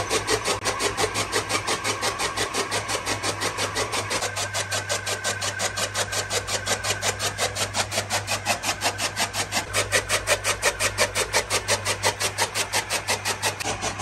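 Electric-motor-driven chaff cutter chopping green fodder: a steady motor hum under a rapid, even chop of the flywheel knives, about four to five strokes a second.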